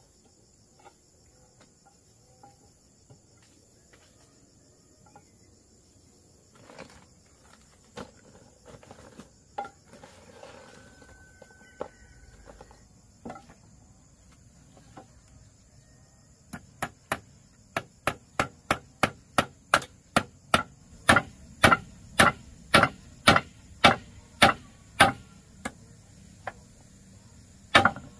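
Hammer blows on wood: a few scattered knocks, then, from just past halfway, a quick, even run of loud strikes. A steady high chirring of crickets runs underneath.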